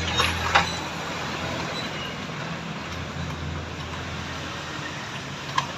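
Steady mechanical rumble and hiss, with two sharp metallic knocks just after the start and another near the end, typical of hand tools striking metal during steering rack work.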